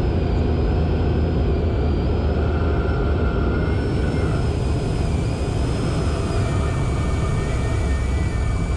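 Cessna 185 floatplane's IO-550 engine and propeller running steadily at landing power, heard from inside the cockpit. A higher hiss joins the drone about four seconds in.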